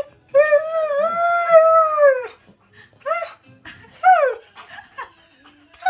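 Husky howling: one long, wavering howl of about two seconds, then two shorter howls that fall in pitch.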